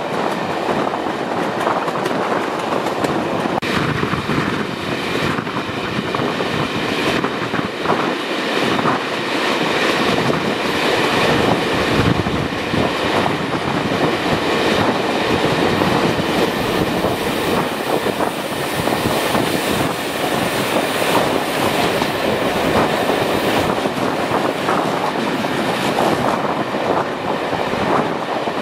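Running noise of a passenger train heard from an open coach window: wheels rolling on the rails with clicks and rattles, and the rush of air past the moving train, steady throughout.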